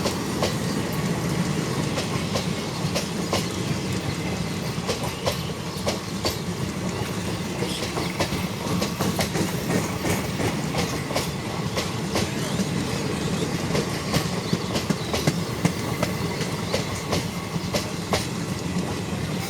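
Passenger coaches of an express train rolling past at speed: a steady rumble of wheels on rail with frequent clicks as the wheels cross rail joints.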